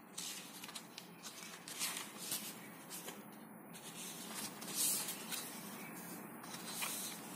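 Sheets of paper rustling and sliding against each other as they are handled and shifted, in irregular soft bursts.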